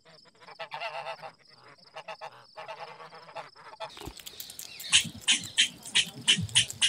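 Goose honking: two wavering calls about two seconds apart. About four seconds in it gives way to a quick run of sharp, high-pitched squirrel chirps, about three a second.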